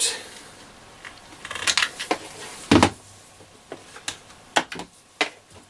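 Batteries being popped out of a Hacker Mini Herald transistor radio: a series of small plastic clicks and knocks, with one louder knock about three seconds in.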